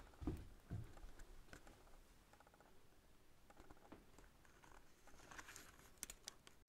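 Near silence, with a few faint soft knocks in the first second, light rapid ticking around the middle, and a few sharp clicks near the end.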